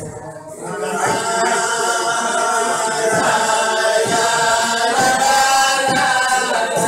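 A group of men singing together in chorus, unaccompanied, their voices swelling in about a second in and carrying on steadily.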